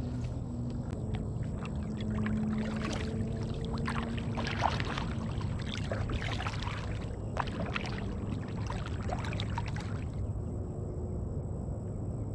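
Water splashing and trickling against a kayak in a dense, irregular patter over a low steady rumble, stopping about ten seconds in.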